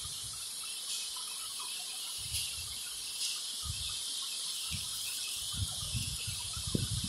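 Marker pen writing on paper, with scattered soft low knocks from the hand and pen against the sheet, over a steady high hiss.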